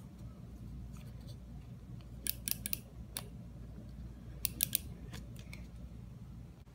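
Correction tape dispenser being rolled across handwritten paper, laying down tape. It gives two short runs of quick, crisp clicks, one about two seconds in and one after four seconds, with a few single ticks between, over a low steady room hum.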